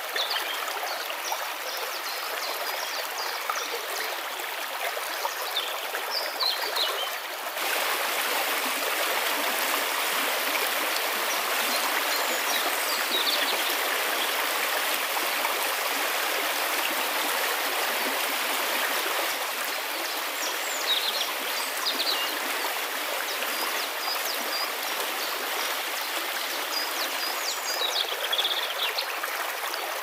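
Fast-flowing creek rushing steadily over stones, becoming fuller and louder about seven seconds in. A few short, faint high chirps sound over it now and then.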